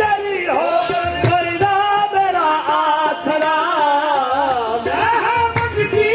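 Qawwali music: a singer's voice rising and falling in long pitched lines over steady hand-drum strokes.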